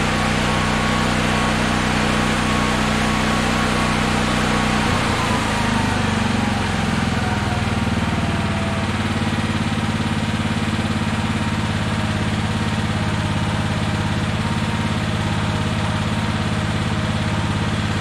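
Honda EB6500X generator engine running steadily. About five seconds in, its speed drops and falls in pitch, then settles into a steady, slower run as the auto throttle cuts back the revs.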